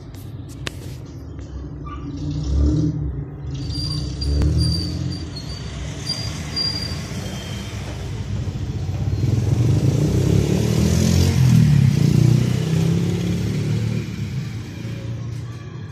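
A road vehicle's engine rumbles, growing louder to a peak about two-thirds of the way through and then fading, as if passing by. A row of short high chirps sounds a few seconds in.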